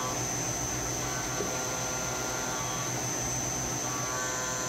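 SYIL X7 CNC milling machine running a small end mill through a metal part: a steady machine noise with a steady high whine, and a set of cutting tones that comes in about a second in, drops out and returns near the end. Under it runs the steady hum of a rotary phase converter.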